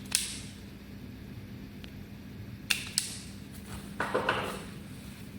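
Sharp clicks and light taps of small parts and tools handled on a workbench: one near the start, two close together about halfway, then a short rustling scrape, over a steady low hum.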